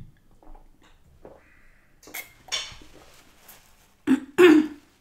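Quiet sips and swallows of a drink from a glass, then a paper napkin rustling against the mouth, loudest near the end.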